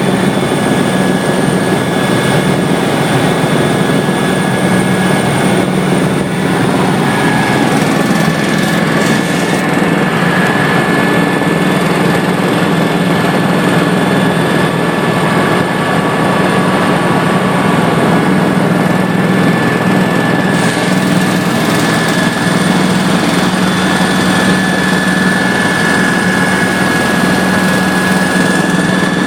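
Helicopter in flight: a steady, loud drone of engine and rotor with a constant high whine, unchanging throughout.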